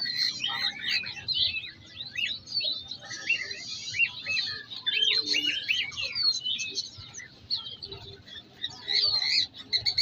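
Many caged songbirds chirping and calling at once: a dense, overlapping chatter of short high chirps and quick whistled slurs from several birds.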